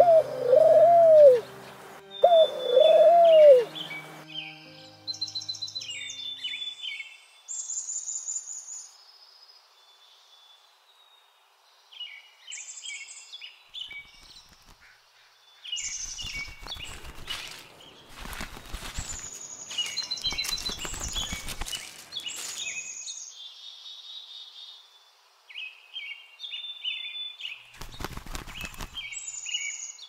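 A pigeon cooing in low, arching calls a few times in the first seconds, then small birds chirping and twittering on and off. Several short bursts of wing flapping come from a pigeon tied by a string, beating its wings: a few around the middle and one near the end.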